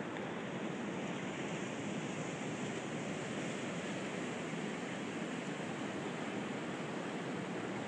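Ocean surf washing in a steady, even rush of noise, with no music.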